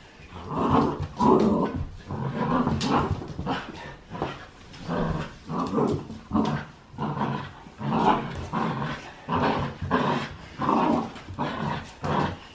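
Bernedoodle puppy growling in repeated short bursts, about one a second, while tugging on a plush toy: playful tug-of-war growls.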